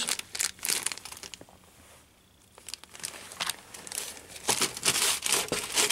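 Clear plastic bag crinkling as it is handled, with a brief lull about two seconds in before the crinkling starts again.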